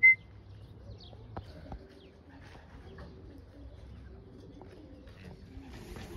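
Pigeons cooing, a run of low repeated coos, with a couple of faint clicks about a second and a half in.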